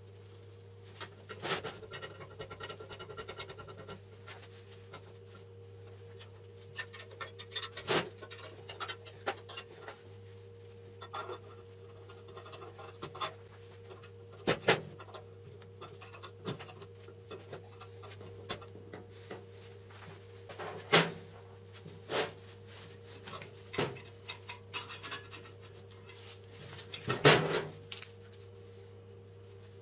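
Steel parts of a drill vise being handled and fitted: scattered metal clicks, knocks and scrapes, the loudest near the end, over a steady low hum.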